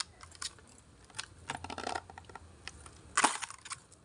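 Crisp snapping and tearing as the layered outer sheaths are peeled by hand off a seeded-banana stem. There is a rustling tear about halfway through and a louder crack about three seconds in.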